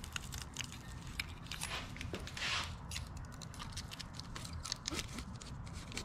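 Light scattered clicks and scrapes of a steel feeler gauge and gloved hands working around the cylinder head while valve clearances are checked, with a short hiss about two and a half seconds in.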